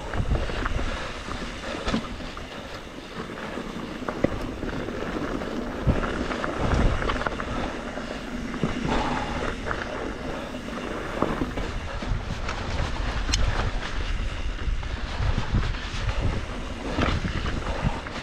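2021 Trek Slash 7 mountain bike descending rough singletrack: tyres rumbling over dirt and rocks with frequent sharp knocks and rattles from the bike, over a steady low buffeting of wind on the microphone.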